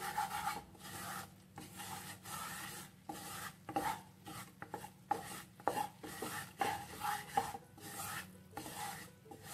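Wooden spatula scraping a flour-and-butter roux around a nonstick pan in repeated stirring strokes, about one a second, as the roux cooks for a béchamel sauce.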